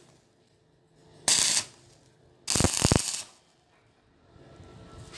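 Stick (arc) welder crackling and hissing as the electrode strikes an arc on steel tubing, in two short bursts about a second apart, the second one longer: quick tack welds on the frame.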